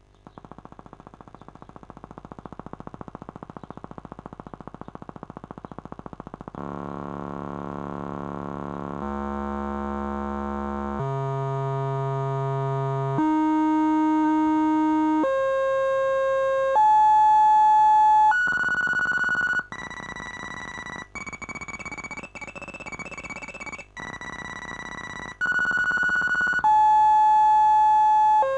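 Buzzy square-wave tone from a simulated 555 timer oscillator, played through the circuit simulator's virtual speaker. It starts as a low rapid clicking and then steps up in pitch every couple of seconds to a high whistle, before stepping back down near the end. The oscillator's frequency is rising and falling as the light on its light-dependent resistor is raised and lowered.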